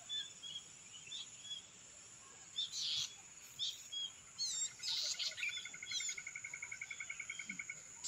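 Wild birds calling: scattered short chirps and quick sweeping notes, then a rapid even trill of about ten notes a second running for over two seconds in the second half, over a steady high insect hiss.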